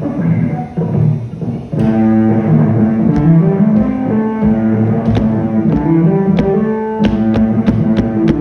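Music: a bass line and plucked string notes, with a sharp percussion beat joining about two seconds in.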